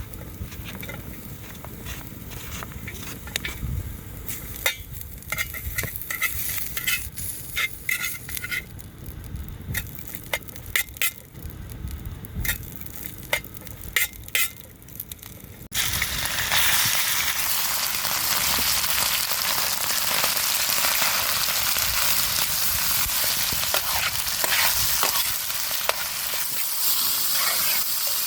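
Meat frying in a saç tava. The first half holds scattered clicks and knocks over a low rumble. About sixteen seconds in it changes suddenly to loud, steady sizzling.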